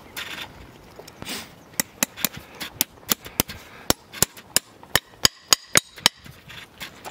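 Farrier's hammer tapping horseshoe nails into a steel shoe on the hoof: a quick, even run of sharp metallic taps, about three to four a second, starting about two seconds in and stopping about six seconds in.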